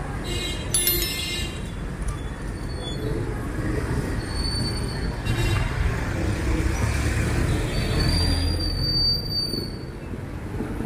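Street traffic under the elevated LRT-1 line: a steady low rumble of motor tricycle and jeepney engines, with high metallic squeals from train wheels on the track overhead. There is a short squeal about half a second in and a longer one held for over a second near the end.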